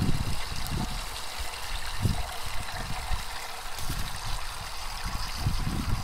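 Water rushing from a Jobe Megaflow full-flow float valve into a plastic livestock tub as it fills: a steady splashing hiss, with intermittent low rumbles.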